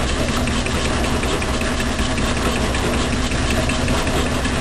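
Logan metal lathe running steadily with a fly cutter spinning in the chuck, milling a block clamped in the milling-attachment vise, with a light regular ticking over the machine hum.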